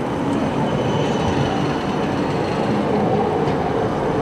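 Tram running on street rails close by, a steady rolling rumble of wheels on track with faint high wheel squeal coming and going.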